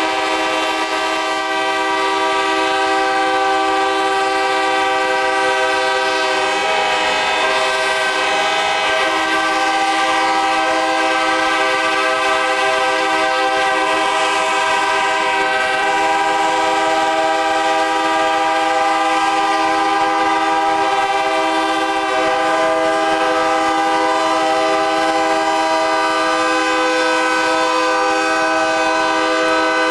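Locomotive air horns blowing together without a break, a loud steady chord of many notes held throughout.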